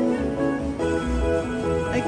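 Slot machine win music: a quick run of chiming melodic notes playing while the win meter counts up a major jackpot.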